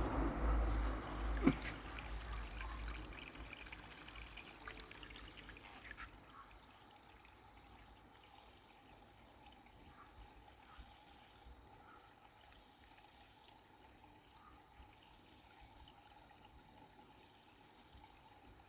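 Low rumble and a few sharp knocks in the first few seconds, then a faint steady hiss with a faint hum.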